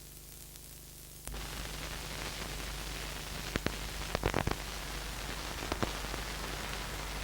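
Static hiss and a steady low hum from an old digitised VHS tape's soundtrack. The hiss comes in suddenly about a second in, and a few scattered clicks fall in the middle.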